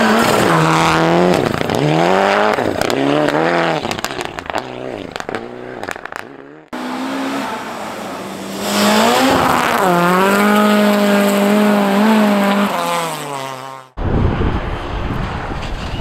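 Rally car engines at full throttle on a snow stage: the first car's revs rise and fall several times as it lifts and shifts gears while passing, then a second car climbs to a high, steady rev for about three seconds before dropping away. About two seconds before the end the sound cuts to a low rumbling noise.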